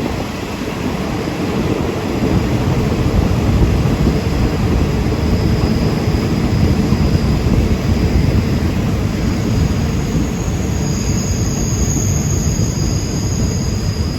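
Steady low rumble of a train in motion, with faint high whines coming in over the second half.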